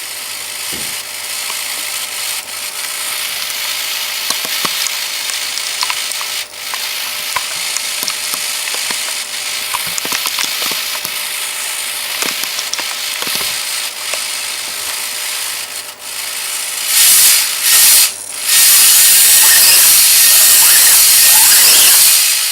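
Small motor-driven mechanism of a 3D-printed scale V8 in an RC truck, clattering steadily with many light clicks. About 17 seconds in it turns into a much louder, steady high whir that cuts out twice briefly before holding.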